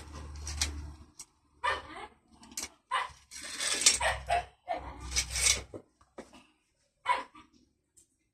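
A dog barking repeatedly in short, irregular barks.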